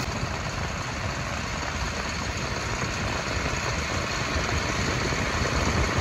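Allis-Chalmers 8070 tractor's six-cylinder diesel engine running steadily with a deep rumble.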